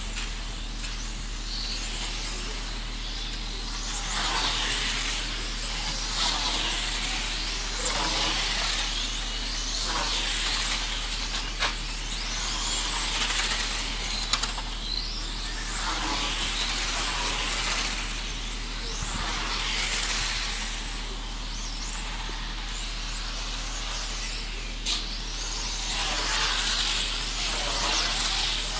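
Electric 1/10-scale radio-controlled racing cars speeding past on an asphalt track, their motors giving a high whine that sweeps up and down in pitch as each car passes, again and again. A few sharp clicks are heard.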